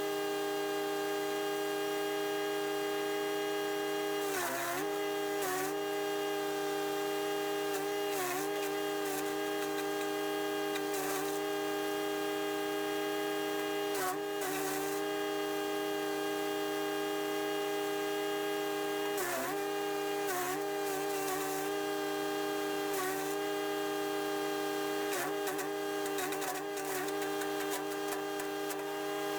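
Chipease D1500E wood chipper's 420cc four-stroke engine running steadily at high speed. About every few seconds, when a branch is fed in and chipped, it bogs down briefly in pitch and then recovers, along with sharp cracking from the blades.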